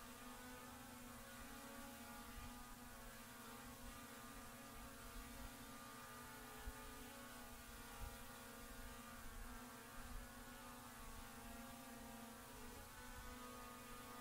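Faint steady mechanical hum: a strong low tone with a stack of steady higher tones above it, unchanging throughout.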